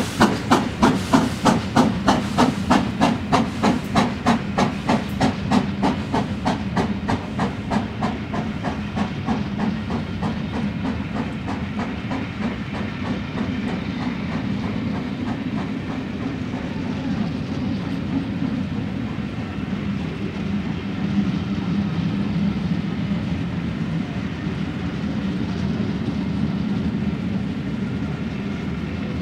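Steam locomotive's exhaust beats, fast and even at about three to four a second, fading away over the first several seconds as it draws off. The train's coaches keep rolling past with a steady rumble and clatter of wheels on the rails.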